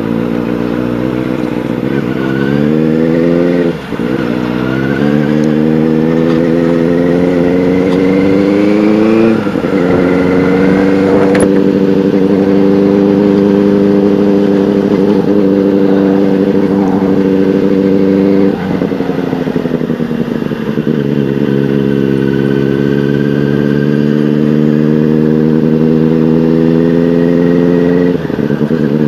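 Benelli 600i's inline-four engine, fitted with an aftermarket Ixil exhaust, pulling through the gears on a ride. The pitch climbs and drops at gearchanges about four and nine seconds in, then holds steady. It dips near the middle, climbs slowly again and drops off near the end.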